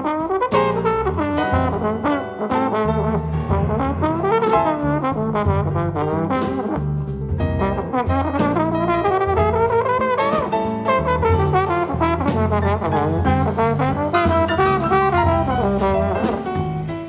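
Trombone playing a solo line that glides up and down between notes, over a jazz rhythm section of piano, electric bass guitar and drums with cymbals.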